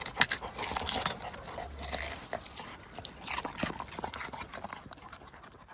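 A dog rooting with its nose in loose, crumbly soil among leafy plants: irregular soft crackling and rustling that fades toward the end.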